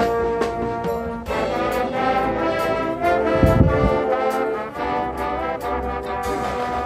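High school marching band playing a brass-heavy passage: sustained brass chords that change every second or so, with percussion strikes, and a brief low rumble about halfway through.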